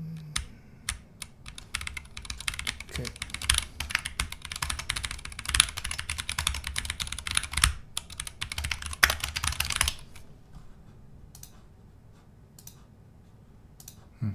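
Typing on a computer keyboard: a fast run of keystrokes for about ten seconds, then slowing to a few scattered key presses near the end.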